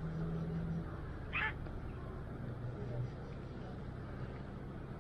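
Steady low hum of city traffic, with one brief animal call about a second and a half in.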